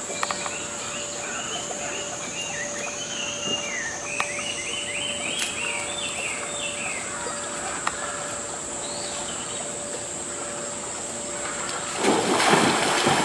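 Outdoor ambience with a steady high-pitched insect drone and a run of short, high, downward-sliding chirps in the first half. A burst of rushing noise comes near the end.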